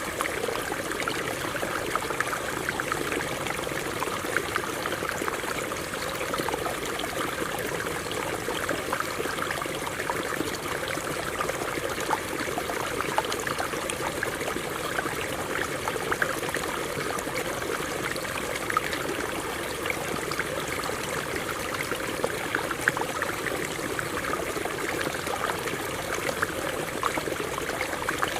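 Stream water running and splashing over rocks, a steady rushing with many small splashes and gurgles.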